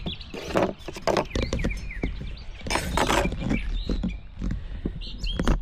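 Wild birds chirping in short rising and falling notes, over scattered clicks and a rustling burst about halfway through, with a low outdoor rumble underneath.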